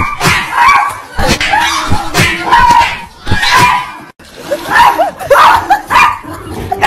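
A cat and dogs fighting: a rapid run of short, high-pitched animal cries and snarls, one after another.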